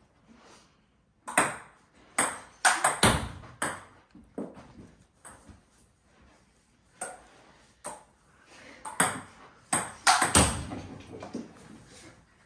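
Table tennis ball smashed with a Stiga paddle and bouncing on the table: sharp clicks in two quick clusters, a handful in the first few seconds and another burst about nine to ten seconds in, with a couple of heavier hits among them.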